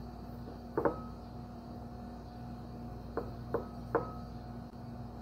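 Light clicks of fingers against a white ceramic bowl, some leaving a short ring: a pair about a second in, then three more a little apart, over a steady low hum.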